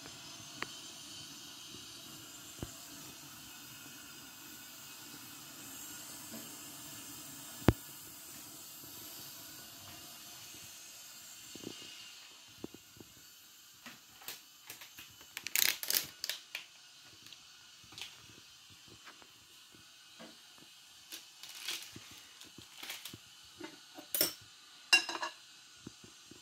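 Steady hiss from a pot of water heating on a gas stove, with one sharp click. From about halfway there are crisp crinkling, rustling and clicking sounds as dry instant noodles and a foil seasoning sachet are handled at a plate.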